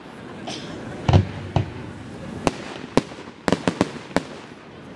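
Aerial fireworks shells bursting: a deeper, louder boom about a second in, then single sharp bangs and a quick run of four cracks around three and a half seconds in.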